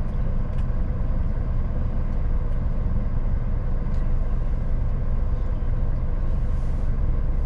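Scania S500 truck's diesel engine running steadily, heard from inside the cab as the truck moves off slowly.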